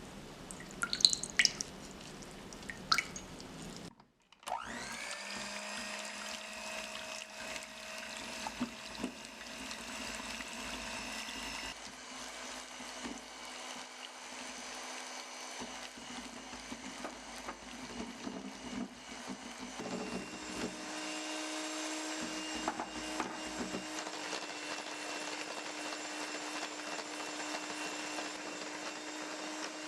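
Electric mixer running steadily, whipping egg whites into meringue, its motor note shifting about 12 s in and again about 20 s in. A few light clicks and taps come just before it starts.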